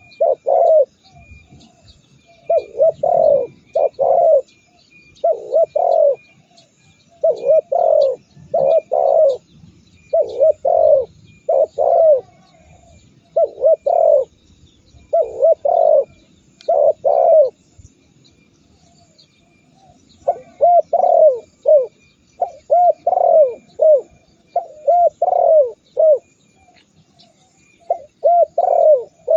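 Spotted dove (tekukur) cooing over and over, its low coos coming in short clusters about every one to two seconds, with a pause of a couple of seconds a little past halfway. Faint high chirps of small birds run underneath.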